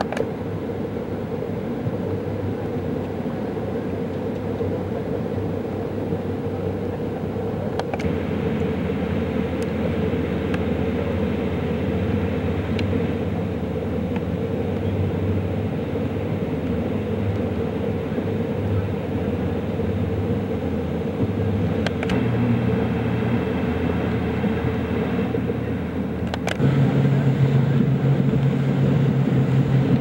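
Motorboat engine running steadily under way, its pitch stepping up a couple of times in the last third as it is throttled up, and louder for the last few seconds.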